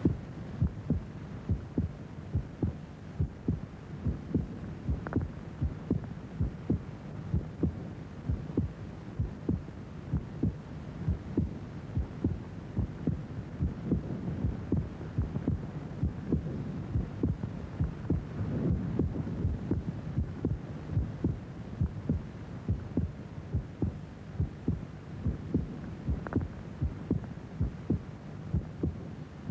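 A heartbeat beating steadily and evenly over a low hum.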